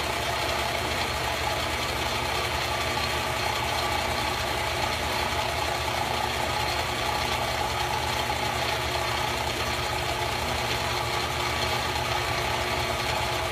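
Mid-1960s Clausing 8520 vertical milling machine running steadily, with several constant tones. Its cutter is slotting a mahogany neck blank while the auto-feed motor drives the table.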